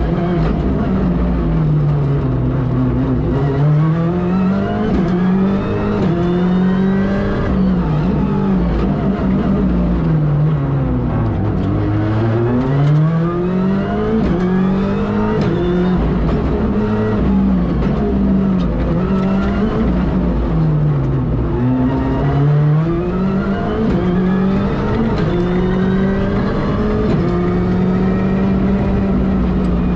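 Ford Fiesta R5 rally car's turbocharged 1.6-litre four-cylinder engine at full stage pace. Its pitch climbs and falls again and again as it accelerates through the gears and comes off the throttle for corners, with three deep drops.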